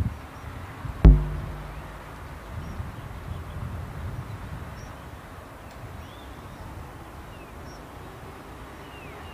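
A single loud metallic clang about a second in, metal struck on the construction site, ringing briefly before dying away. A steady low outdoor rumble runs underneath, with a few faint bird chirps later on.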